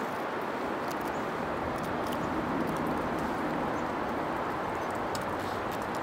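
Steady outdoor background noise, like wind, with a few faint light ticks scattered through it.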